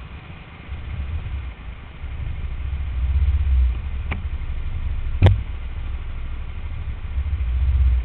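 Go-kart engine running low and steady, heard from a camera mounted on the kart. Two sharp clicks cut through it about four and five seconds in, the second one louder.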